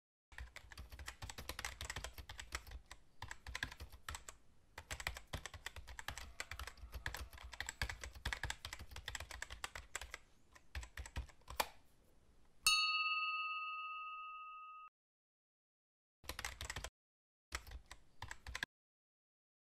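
Typewriter key clicks, rapid and continuous for about eleven seconds, then a single bell ding that rings out for about two seconds. Two short bursts of typing follow.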